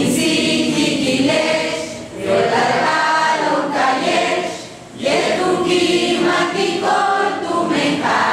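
Choral singing: a group of voices singing in phrases, with short breaks about two seconds in and again near five seconds.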